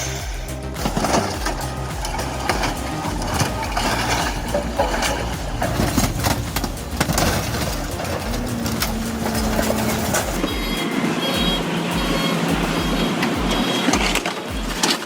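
Heavy machinery at work: an engine running under dense clanking and crunching. About ten seconds in, it changes to a steadier drone with a regular low pulsing and a high steady tone.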